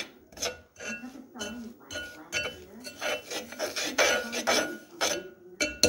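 A fork scraping and stirring grainy sugar and honey in a nonstick pot, not yet melted. It makes a quick, repeated rasping, about two or three strokes a second.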